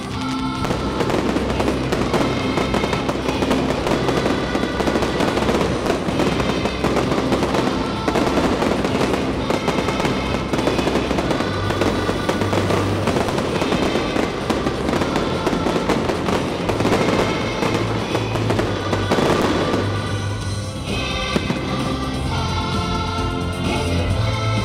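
Live performance of a large youth choir singing an upbeat anthem over a loud amplified band with a steady beat, covered by a dense crackle that runs throughout.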